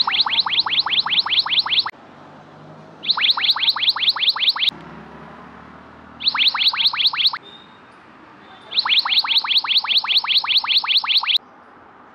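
Borzo courier app's new-order alert ringing on a phone: bursts of quick falling electronic chirps, about six a second. It sounds four times, each burst announcing a fresh delivery order offer waiting to be accepted.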